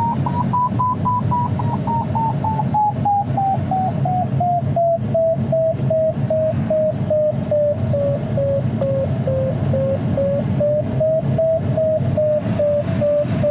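Glider variometer beeping in quick, even pulses, its pitch rising slightly at first, then falling steadily and levelling off lower: the climb-rate tone of a glider circling in a thermal, the lower pitch showing a weakening climb. Under it, steady airflow noise in the cockpit of an ASK 21 two-seat glider.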